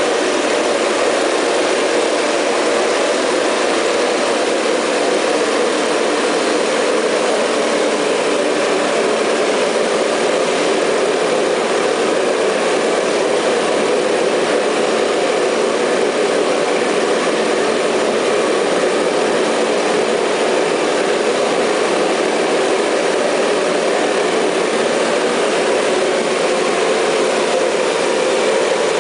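Diesel oil burners firing steadily into an aluminium reverberatory furnace: a loud, even rushing roar of atomised fuel and combustion air that does not change.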